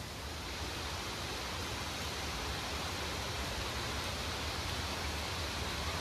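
Forest stream flowing: a steady rushing of water.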